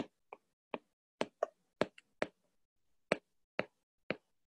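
Stylus tapping on a tablet screen while writing by hand: about a dozen short, sharp clicks at an uneven pace.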